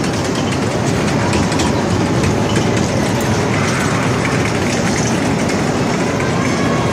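Kiddie amusement train ride running around its small track: a steady rumble of the cars' wheels on the rails, with no clear clicks or breaks.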